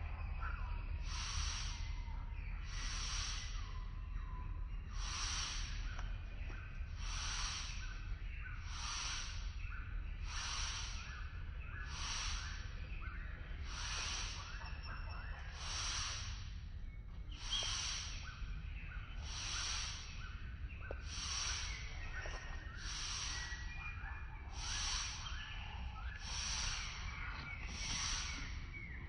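Forest ambience: a hissing, buzzing pulse that repeats about every second and a half, over a steady low rumble, with faint chirps in between.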